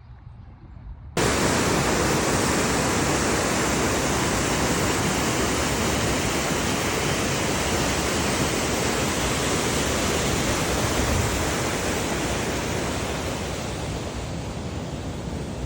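A steady, loud rushing noise cuts in abruptly about a second in and eases slightly near the end.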